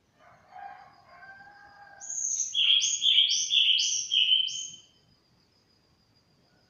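Caged sulingan songbird singing a loud burst of five quick notes, each sliding down from a high whistle to a lower one. A fainter, lower call comes just before it, and a faint steady high tone runs underneath.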